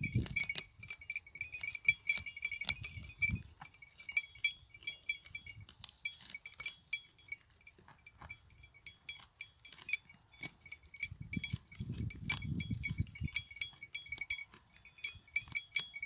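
Goats grazing on dry grass close by, tearing and chewing it in quick, irregular crunches, with a faint high pulsing chirp behind.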